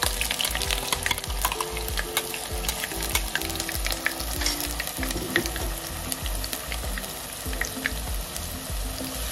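Chopped onions frying in hot cooking oil in a pan, sizzling steadily with many small crackles.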